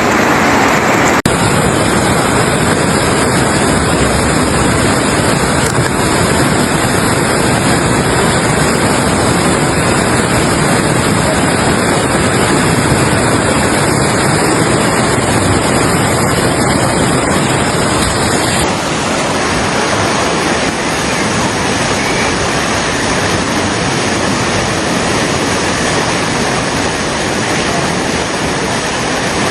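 Loud, steady rush of fast-flowing floodwater, changing character abruptly about a second in and again about nineteen seconds in as one recording gives way to another.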